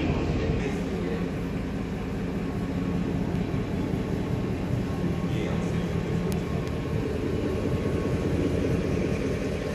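Ford F-150's 5.4 Triton V8 idling steadily, a low even rumble.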